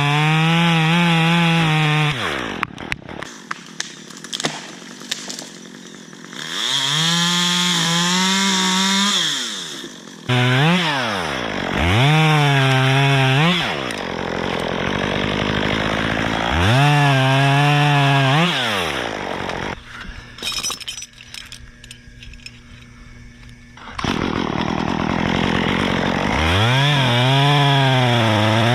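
Top-handle chainsaw revving up and cutting in about half a dozen bursts, the engine pitch climbing and falling with each one and dropping back to idle between cuts, as limbs are cut from a dead white pine.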